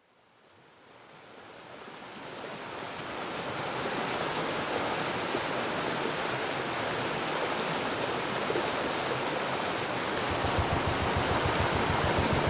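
Rushing water of a waterfall, a steady even noise fading in over the first few seconds. A low, fast, regular throb joins near the end.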